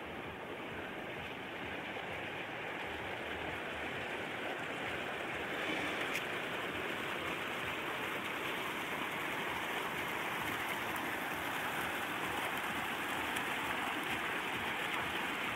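Steady, even rushing noise of outdoor ambience with no distinct events. It grows a little louder about five seconds in and then holds.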